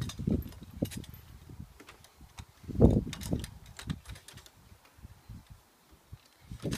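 Scattered knocks and clicks from a wooden swing-set frame and its metal swing hooks as a child climbs and hangs on it, with one louder thump about three seconds in.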